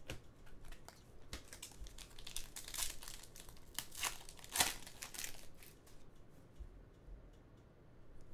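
Trading cards being flipped through by hand: a run of short dry scrapes and rustles of card sliding over card, loudest about four and a half seconds in and dying away after about six seconds.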